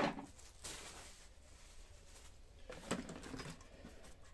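Parts being unpacked from a cardboard box: a sharp knock right at the start, then faint rustling of plastic wrapping and cardboard, with a soft knock about three seconds in.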